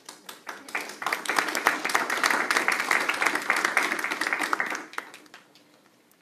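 Small group applauding, swelling about a second in and dying away near the five-second mark.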